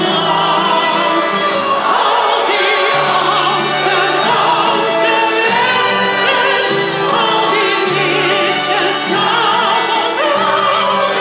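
Classical concert music: an operatic voice singing with vibrato over instrumental accompaniment whose bass notes change about once a second.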